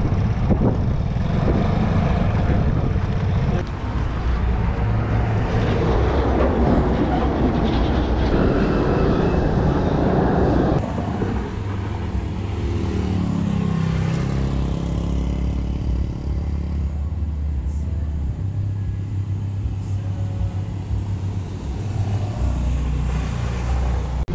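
Motor vehicle engine running amid road traffic noise. About twelve seconds in, an engine note falls in pitch, and the sound then settles to a steadier, quieter hum.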